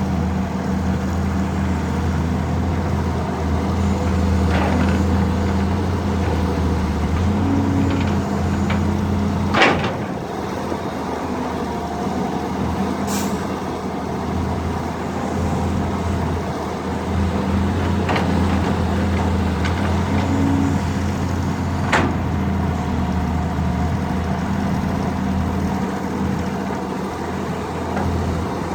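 Diesel engines of excavators working, a steady low drone that rises and falls a little under load. Occasional sharp metallic knocks cut through, the loudest about ten seconds in and another about twenty-two seconds in.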